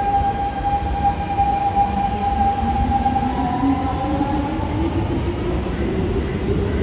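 Siemens C651 electric metro train pulling away, its traction motors whining over a low rumble of wheels on track. A steady whine fades as the train leaves, and a second whine climbs in pitch from about two seconds in as it accelerates.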